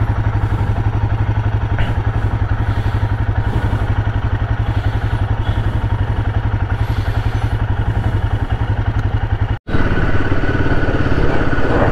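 Royal Enfield Himalayan 450's single-cylinder engine running steadily under way, heard as a fast, even pulse with a strong low hum. The sound drops out for an instant about two-thirds of the way through, then carries on.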